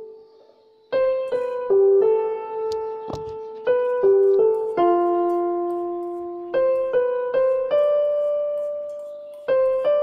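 Background piano music: a slow melody of single notes, each struck and left to ring and fade, starting after a short pause about a second in.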